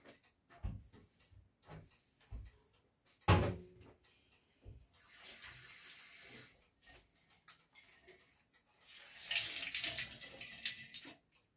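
Kitchen tap running into a stainless-steel sink, with a plastic bag rinsed under it: a short run of water about five seconds in and a louder one near the end. Before that, a few light knocks and one sharp, loud knock about three seconds in.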